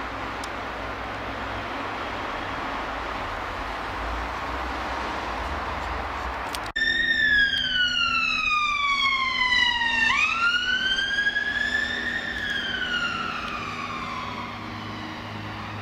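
A steady rumbling noise, then, after an abrupt cut about seven seconds in, an emergency-vehicle siren in wail mode: one slow falling sweep, a sudden jump and rise, then a second slow fall that fades out.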